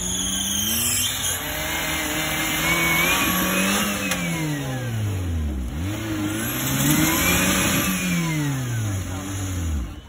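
Off-road competition 4x4's engine revving hard as the vehicle claws up a steep mud bank, the revs rising and falling twice, the second time dropping away sharply near the end.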